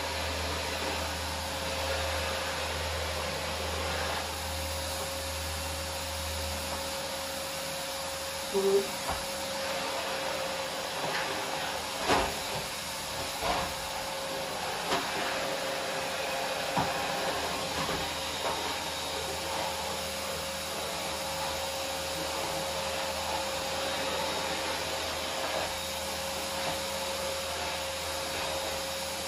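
Red canister vacuum cleaner running steadily with a constant whine as its floor nozzle is pushed over a wooden floor. A few sharp knocks cut through it, the loudest about nine and twelve seconds in.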